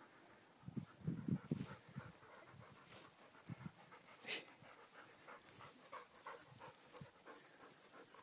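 Dog panting in quick, even breaths, about three a second, faint. About a second in there are a few low thumps, from wind or handling on the phone's microphone.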